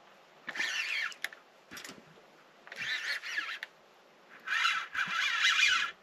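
Fishing reel drag whining in three short runs of about a second each, its pitch wavering, as a hooked fish that the angler takes for a trevally pulls line off the spool.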